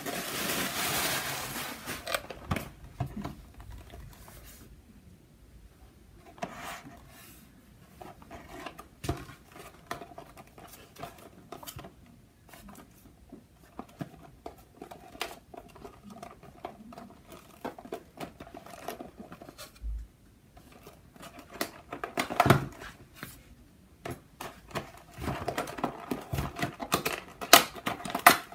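Hands handling a cardboard model-aircraft box: white paper wrapping rustles loudly as it is pulled off at the start, then quieter scuffs and rubs as the box is turned over, with a few sharp knocks about two thirds of the way in and more clattering handling of the box near the end.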